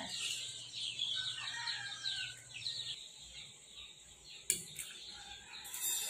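Birds chirping in quick repeated short notes, fading after about three seconds, with one sharp click about four and a half seconds in.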